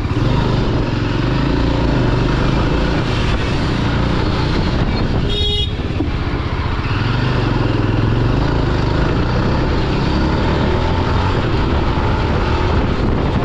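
Yezdi Adventure motorcycle's single-cylinder engine running under way, with steady engine and road noise. A short horn toot sounds about five and a half seconds in.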